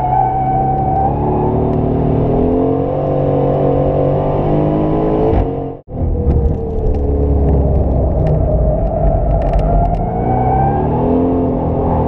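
Aston Martin Vantage's twin-turbo 4.0-litre V8 heard from inside the cabin under hard track driving, its pitch falling and rising as speed changes. The sound cuts out for a split second about six seconds in, then the engine carries on.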